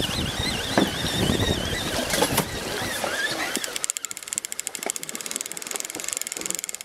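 Wind and water noise on a boat with a wavering high whistle. About three and a half seconds in, the rumble drops away and a fishing reel's ratchet starts clicking rapidly and evenly as line is wound.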